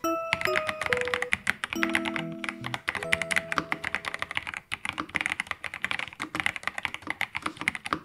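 Fast typing on a mechanical keyboard: a dense, steady run of keystroke clicks. Soft melodic background music plays over the typing and stops about three seconds in.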